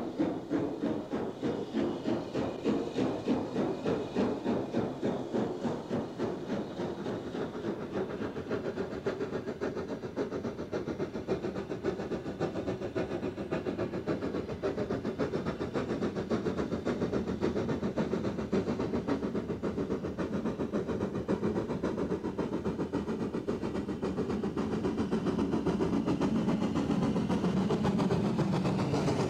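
BR Standard Class 4 2-6-4 tank engine No. 80135 working a train, with steady steam exhaust beats about two or three a second. The sound grows louder toward the end as the engine draws near.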